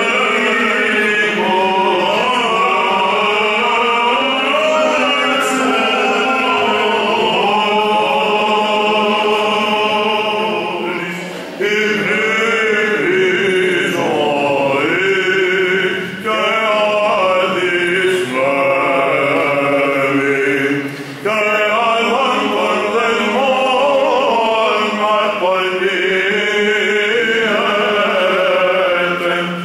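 Byzantine chant: a group of voices singing an Orthodox hymn unaccompanied, in long flowing phrases with short breaks between them.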